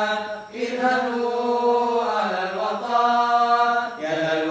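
Male vocal group singing a cappella in unison: long, drawn-out notes with a brief breath about half a second in and a step in pitch about two seconds and again about four seconds in.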